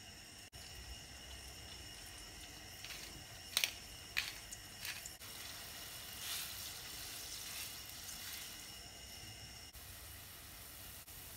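Watery mixture in a nonstick pot stirred with a silicone spatula. A few sharp scrapes and sloshes come between about three and five seconds in, over a steady hiss.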